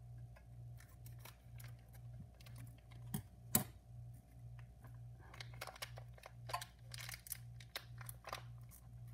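Hands opening a new pack of hookah tobacco: faint scattered clicks, taps and crinkles, with two sharper clicks a little past three seconds in. Under it a low hum pulses about twice a second.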